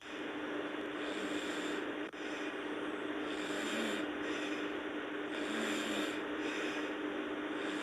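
Sleeping person snoring and breathing noisily in slow, repeating breaths, over a steady hum.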